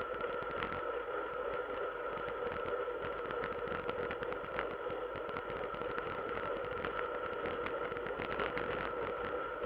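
Ride noise picked up by a handlebar-mounted action camera: a muffled, steady rush with continual rattling from the mount and two steady hums underneath.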